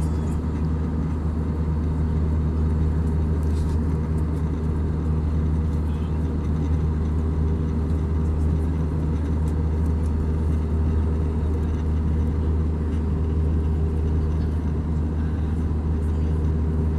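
Airbus A320 passenger cabin in cruise, heard at a window seat over the wing: steady engine and airflow drone with a deep, even hum.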